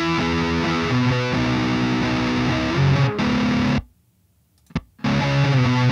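Recording of a distorted electric guitar playing sustained chords, played back through iZotope RX 11 Guitar De-noise, which is slightly cutting the amp's low-end noise. The playing breaks off into silence for about a second around four seconds in, then resumes.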